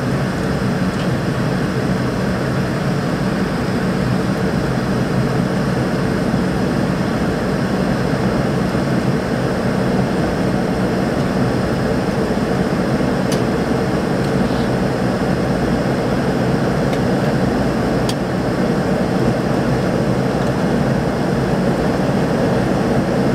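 Steady cabin noise of a McDonnell Douglas MD-88 in its climb after takeoff: its two tail-mounted Pratt & Whitney JT8D turbofans running at climb power, mixed with rushing air, with a low hum underneath.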